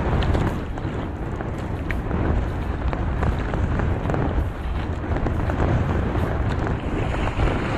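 Wind buffeting the microphone in a steady low rumble over sea noise around a small boat, with a few faint light clicks as the nylon gill net is hauled in over the side.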